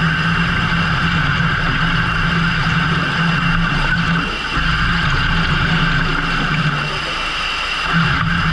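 Fishing boat's engine running steadily with a high whine over a low hum; the low hum fades for a few seconds past the middle and comes back near the end.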